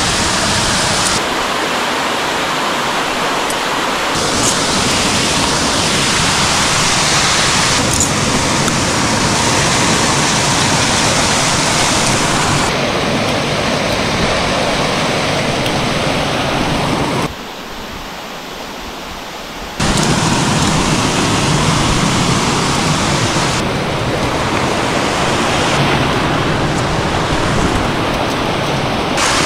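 Loud rushing water of a mountain-stream waterfall, a steady noise that changes abruptly several times and drops for a couple of seconds a little past the middle.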